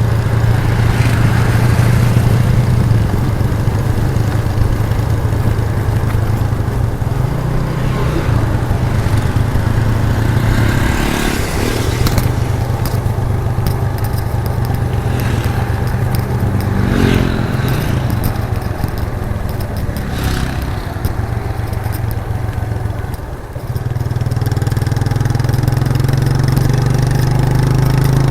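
1998 Suzuki GN125's single-cylinder four-stroke engine running on the move, its exhaust note rising and falling with throttle and gear changes. The engine note dips briefly about five seconds before the end, then picks back up.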